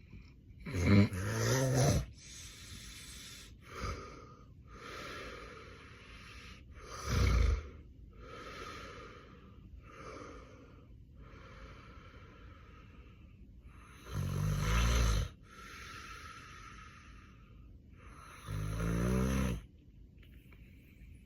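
A sleeping man with severe sleep apnea snoring heavily: four loud snores come at irregular gaps, with softer breaths in between.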